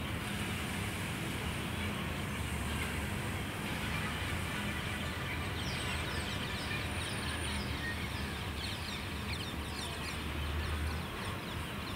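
Steady outdoor background noise, with birds chirping from about halfway through.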